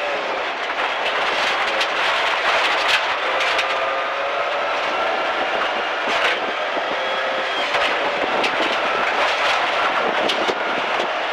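Subaru Impreza STi Group N rally car's turbocharged flat-four engine pulling hard, its revs climbing slowly, with tyre noise and gravel stones clicking and knocking against the underbody as it drives fast on a gravel road.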